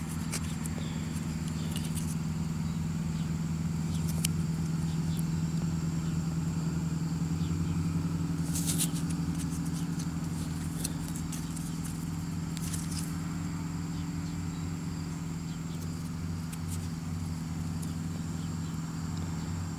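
A steady low hum from a running motor, unchanging throughout, with a few faint clicks and rustles of handling.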